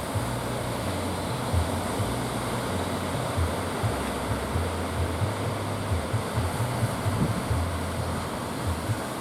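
Sea surf washing steadily, with strong wind buffeting the microphone in irregular low rumbles.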